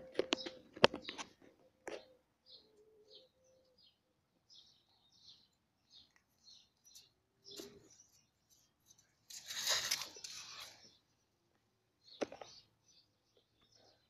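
Small birds chirping in short, high calls on and off throughout. Near the start, a cluster of crunching and rustling as a cat chews and tugs at a dead bird, then about nine seconds in a harsh hissing noise lasting over a second.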